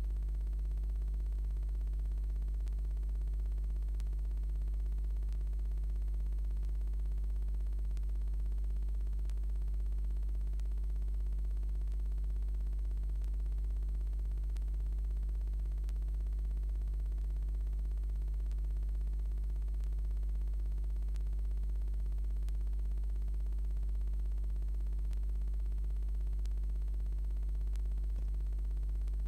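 Steady low hum with an even hiss, unchanging in level.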